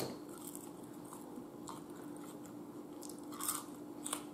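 Close-up chewing of a crinkle-cut french fry: a few soft, scattered crunches and mouth sounds over a faint steady hum.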